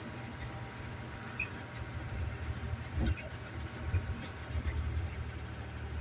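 Dually pickup truck driving slowly through deep snow, heard from inside the cab: a steady low engine and road rumble, with one thump about halfway through.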